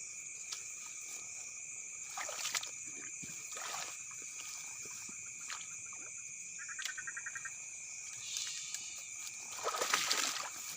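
Night chorus of insects and frogs droning steadily in two high tones, with a short, fast-pulsing frog call about seven seconds in. Water splashes and sloshes around two seconds in and again, louder, near the end.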